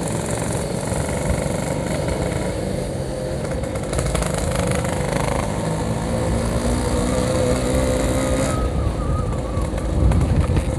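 Yamaha RX-King's 135 cc two-stroke single-cylinder engine running steadily at low speed through a Packing Power aftermarket exhaust, held to a gentle pace.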